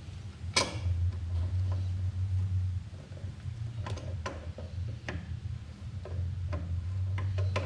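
Scattered small clicks and knocks of hands and tools working on a mini excavator's fuel filters and their sediment cup, with the sharpest knock about half a second in. A steady low hum runs underneath.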